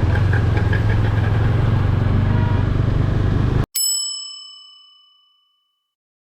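Steady riding noise of a TVS Apache RTR 200 4V single-cylinder motorcycle with wind on the microphone. The noise cuts off abruptly about three and a half seconds in, and a single bell-like chime rings and fades over about two seconds.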